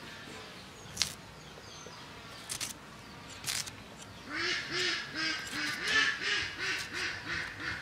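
A duck quacking rapidly in a run of about a dozen short calls over the second half. Before that come a few sharp crisp snaps as a raw radish is cut against a curved iron hand blade.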